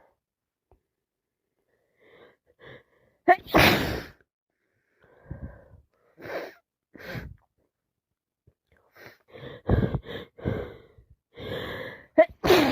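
A girl with a cold sneezing. A few short catching breaths lead into a loud, sudden sneeze about three seconds in. Short breaths follow, and a second loud sneeze comes right at the end.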